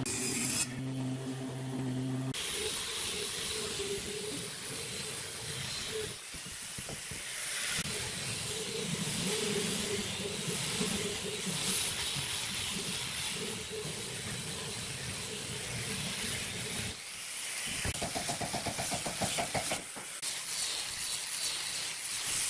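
Angle grinder fitted with a sanding disc, running as it sands pine wood with a continuous hiss. For about the first two seconds a steady machine hum is heard instead.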